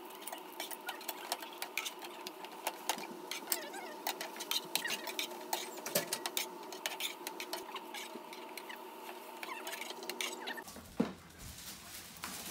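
Hotteok sizzling and crackling in hot oil in a nonstick frying pan over a steady hum, with a metal spatula pressing and turning them. The sizzling stops abruptly near the end.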